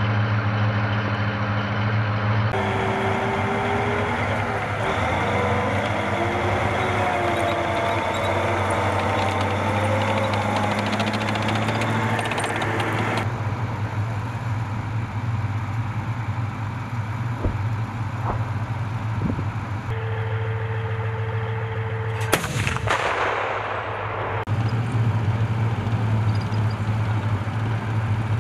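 Bradley Fighting Vehicles' diesel engines idling in a steady low drone, with a wavering whine over it in the first half. A few single gunshot reports come through, the loudest about 22 seconds in with a ringing tail.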